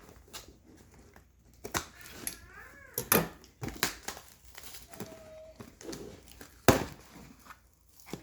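Packaging being opened and handled by hand: crinkling and tearing, with several sharp clicks and knocks, the loudest about three seconds in and again near the end.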